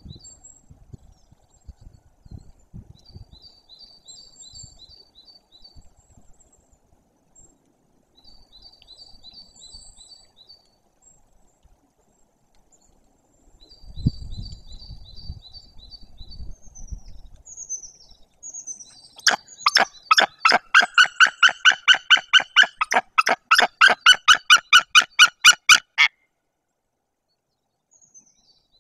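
White-tailed eagle giving a long series of loud, evenly spaced calls, about three a second for some seven seconds, in the alarm over an intruding adult eagle at the nest. Before it, a small songbird repeats a short, high trill several times, over some low rumbling.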